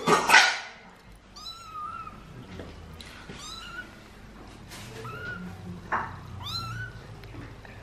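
Young kitten mewing: four short, high-pitched calls spaced a second or two apart. A brief loud noise comes right at the start.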